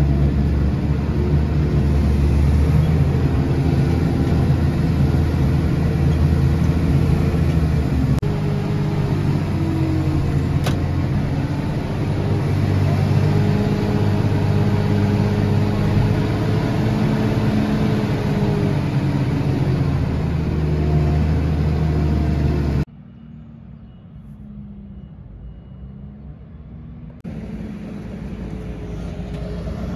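Tractor engine working under load, heard from inside the cab while it pushes and packs chopped maize silage on the clamp; the engine note rises and falls as the load changes. About 23 s in the sound cuts suddenly to a much quieter outdoor hum, and farm machinery grows louder again near the end.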